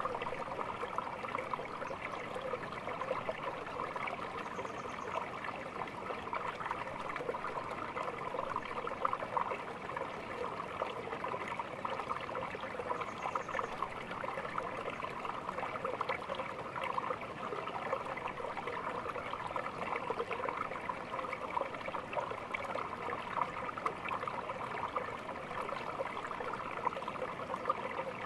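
Small stream babbling and trickling, a steady, even water sound.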